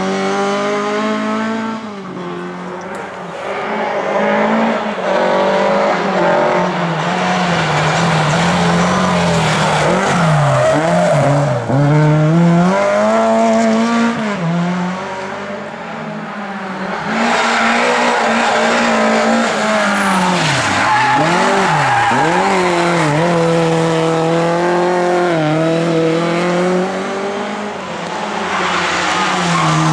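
Lada race cars' four-cylinder engines revving hard through corners, the pitch climbing and then dropping sharply several times as drivers lift and change gear, with tyres squealing and skidding.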